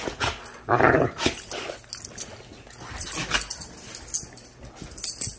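Two dogs play-growling as they wrestle, with one loud growl about a second in and quieter grumbles and scuffling after.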